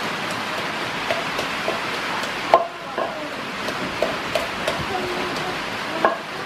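Wooden pestle pounding in a wooden mortar: irregular knocks, each with a short hollow ring. The loudest come about two and a half seconds in and again near the end, over a steady hiss.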